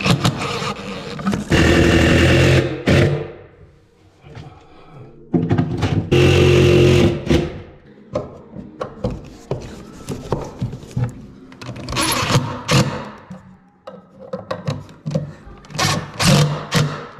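Cordless drill driving a long screw through a steel angle bracket into a wooden cabinet base, the motor running in bursts of one to two seconds with sharp clicks and knocks between.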